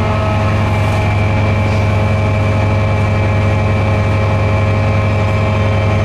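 Class 68 diesel-electric locomotive's Caterpillar V16 diesel running steadily while the locomotive stands at the platform: a loud, deep, even drone with steady whining tones above it.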